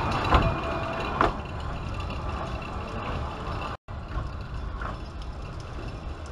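Narrow-gauge railway coaches rolling away along the track. The wheels clatter, with two sharp clicks in the first second and a little over, and the running sound fades slowly as the train draws off.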